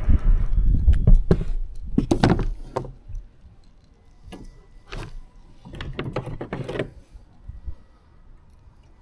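Hands and gear knocking and rattling in a kayak while a freshly caught small smallmouth bass is handled aboard: a low rumble in the first two seconds, then scattered short knocks and clatters that die down near the end.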